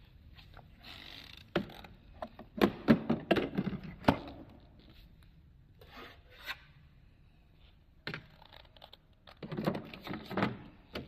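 Irregular rubbing, scraping and knocking, in two clusters: one starting about a second and a half in, the other about eight seconds in.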